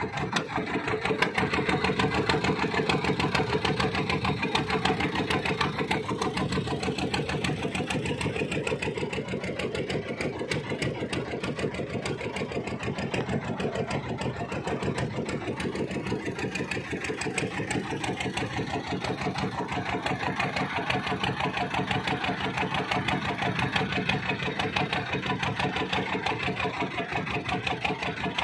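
Small fishing boat's engine running steadily with a rapid, even chugging.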